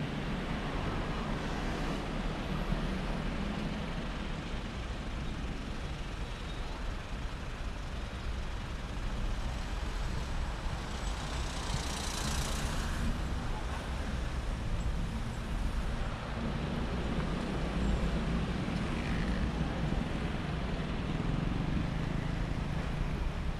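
Road traffic: cars and trucks driving past with a steady low engine and tyre rumble, one vehicle passing close about halfway through with a brief rise of hiss.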